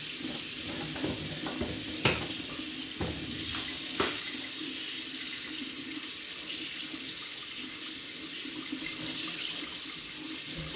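Cold water running from a kitchen faucet over a new Brita filter cartridge held in the stream, splashing into a stainless steel sink: the filter is being flushed before first use. A few sharp knocks sound about 2, 3 and 4 seconds in.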